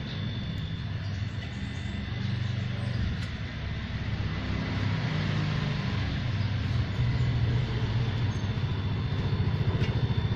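Salvaged refrigerator compressor running as an air pump, inflating a bicycle tyre: a steady low hum with a hiss of air, growing gradually louder.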